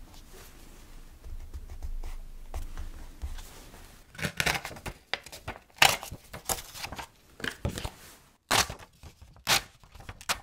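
Memo-pad paper being handled and its sheets pulled apart by hand: soft rubbing at first, then from about four seconds in a string of short, crisp paper rustles and tears, about six in all.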